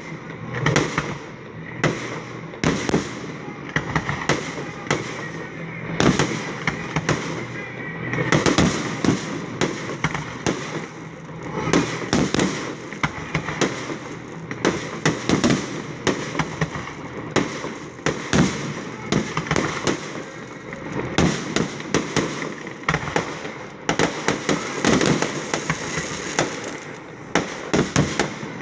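Aerial fireworks display: shells bursting in a dense, irregular barrage of bangs, several going off each second, with crackle and rumble filling the gaps between them.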